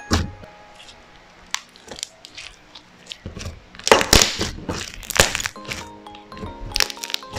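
Background music, over which freshly kneaded clear slime is squeezed and pressed, giving short crackling, popping bursts several times; the loudest cluster comes a little past the middle.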